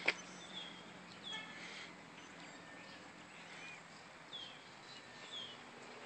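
Birds calling in trees, a string of short down-slurred chirps every second or so over faint steady background noise. A sharp click right at the start is the loudest sound.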